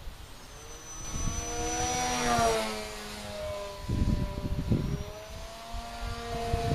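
Propeller of a scratch-built depron RC plane buzzing in flight, its pitch rising and falling as it passes, loudest a couple of seconds in; the prop is extra noisy from a small nick in one blade. A low rumble about four seconds in.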